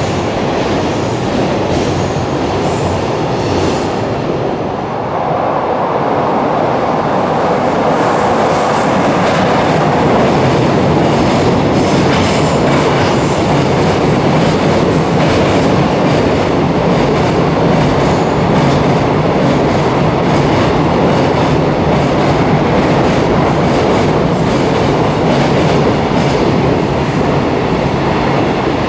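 Long container freight trains passing at speed: a steady, loud rumble of wagons with the wheels clacking repeatedly over the rail joints.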